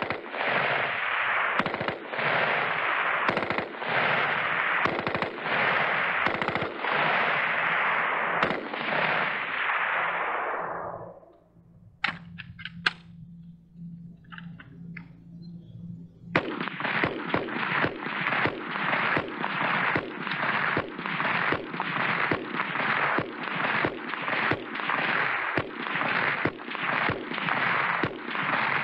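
Military rifle fire on a range: about ten seconds of fast, continuous fire from an M16 whose shots run together, fading out. After a lull with a low hum and a few clicks, an M14 rifle fires steady rapid single shots, about two a second.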